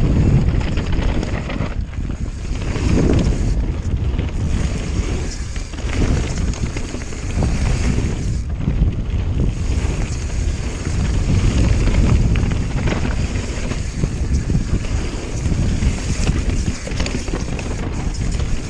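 Wind buffeting the microphone of a camera riding on a mountain bike at speed downhill, over the low rumble and irregular rattling knocks of tyres rolling on loose gravel trail.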